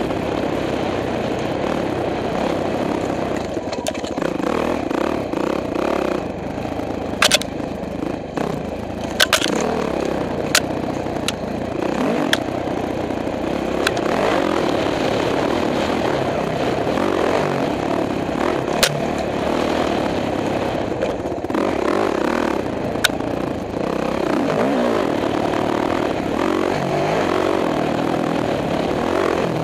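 Dirt bike engine running continuously under way, revs rising and falling as it rides a rough dirt trail, with a few sharp knocks and clicks in the middle stretch.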